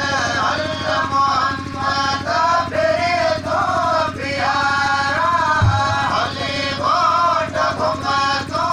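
A voice singing a slow, wavering chant-like melody in repeated drawn-out phrases. A short low thump sounds about five and a half seconds in.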